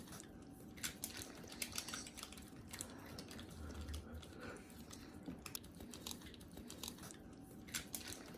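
Young puppy licking yogurt off a yogurt lid: faint, irregular wet smacking and clicking.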